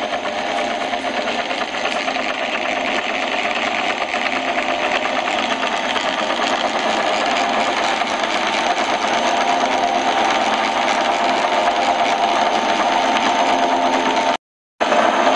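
TV-6 school screw-cutting lathe running at a low spindle speed, its chuck, belt drive and change gears turning with a steady mechanical whir and a dense, fast fine ticking. The sound cuts out for a moment near the end.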